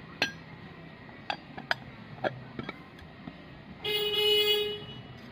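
A few light metallic clinks, then a single steady, horn-like toot lasting about a second.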